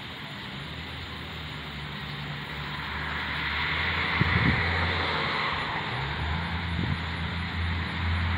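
Summer-night insect chorus of crickets and katydids, with a steady low engine-like hum underneath that grows louder after a few seconds. There are two soft low thumps about four and seven seconds in.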